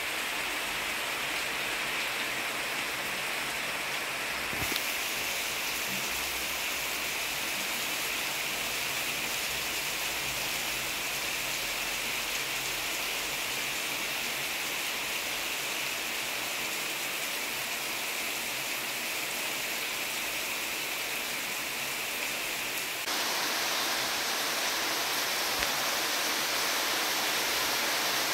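Steady rain falling, an even hiss. The level steps up a little, suddenly, about five seconds before the end.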